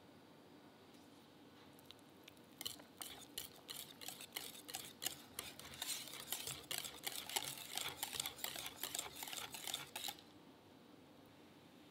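Hand whisk stirring thick cream cheese batter in a glass bowl: fast, irregular clicking and scraping of the wires against the glass. It starts a couple of seconds in and stops shortly before the end.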